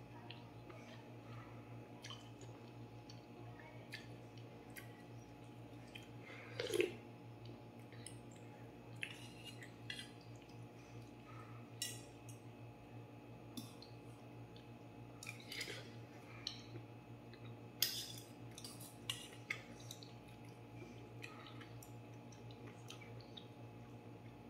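Quiet eating sounds: a metal fork and spoon clinking and scraping in a stainless steel bowl of soupy noodles, with slurping and chewing. The clicks come irregularly, the loudest about seven seconds in and again around eighteen seconds, over a low steady hum.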